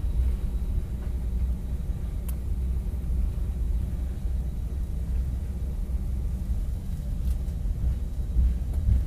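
Airbus A319 cabin noise while taxiing: a steady low rumble of the engines at idle and the wheels rolling over the taxiway, with two faint ticks.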